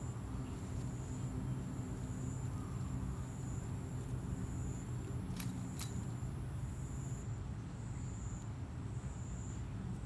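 Steady outdoor background rumble, low and even, with a faint high whine pulsing on and off throughout. Two sharp clicks come about halfway through.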